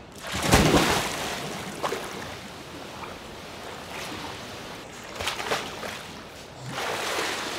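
A person entering a swimming pool: a big splash about half a second in, then water sloshing and lapping as he moves through it, with smaller splashes around five seconds in and near the end.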